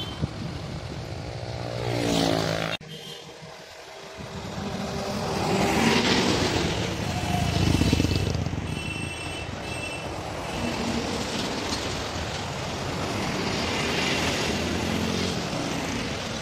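Loaded diesel trucks passing on a highway: engine drone and tyre noise swell as each one goes by, several times, over steady traffic. The sound drops off abruptly about three seconds in, then builds again, and brief high tones sound around nine seconds in.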